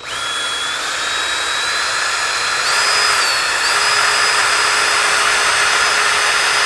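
Yellow-and-black DeWalt cordless drill running a step drill bit through a plastic hole-saw cutout disc held in a vise. The motor whine starts abruptly and rises in pitch over the first three seconds, then holds steady as the bit cuts.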